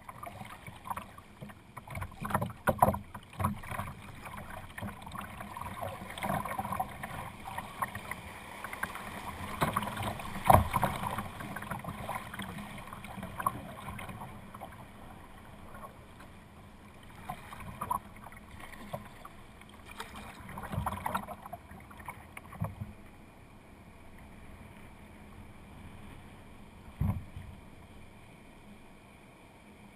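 Kayak paddling heard from a GoPro at the bow: water splashing and rushing along the hull with paddle strokes and occasional sharp knocks. It is busier in the first half and calmer later.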